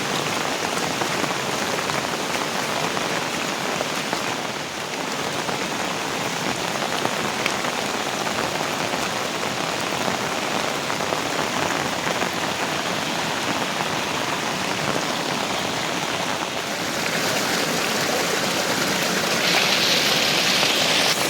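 Heavy rain falling, a steady hiss of drops that grows a little louder near the end.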